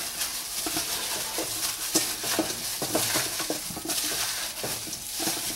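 Boiled chicken wings being stirred and tossed with brown sugar and soy sauce, a run of irregular soft knocks and wet clicks.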